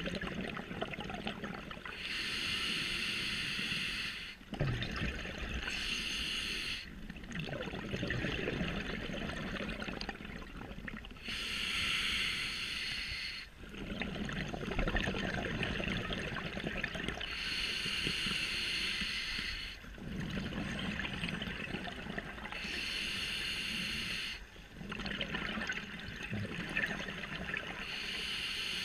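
Scuba diver breathing through a regulator underwater: hissing inhalations every four to six seconds, about six in all, alternating with bubbling exhalations.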